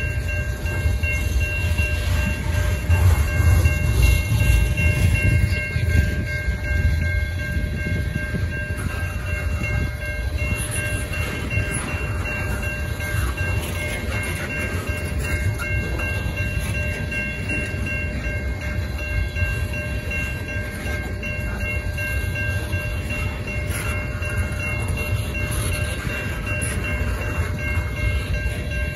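Tank cars of a freight train rolling past, making a continuous rumble of steel wheels on rail that is loudest a few seconds in. Steady high ringing tones hold above the rumble.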